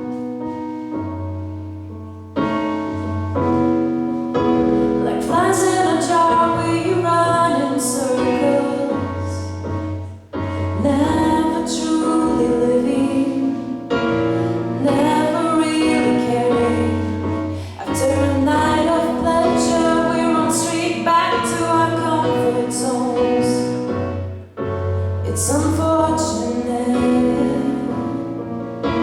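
A woman singing a song with piano accompaniment, the voice held over sustained piano chords and low bass notes, with a couple of brief breaks between phrases.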